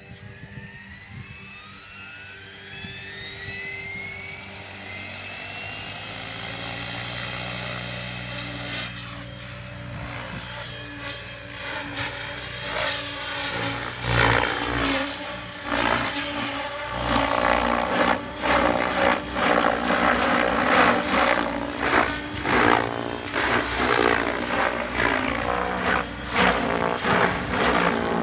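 Electric RC helicopter (Logo 690) spooling up: the motor's whine rises steadily in pitch over the first several seconds as the main rotor with repaired VTX 697 blades comes up to speed. The rotor then runs steadily, and from about halfway through it turns louder, with a pulsing, surging rotor chop.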